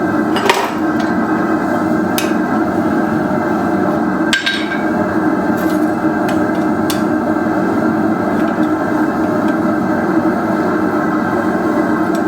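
A few scattered hammer blows on metal, two of them louder with a short ring, over a steady rushing noise of the running forge.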